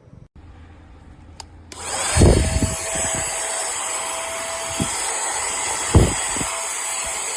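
Small USB handheld vacuum cleaner switched on about two seconds in and running steadily with a high hiss. Two low thumps come while it runs.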